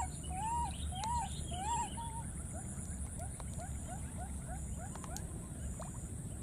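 Baby macaque calling: repeated arching coos, about two a second, that give way about two seconds in to shorter, fainter rising squeaks, about four a second.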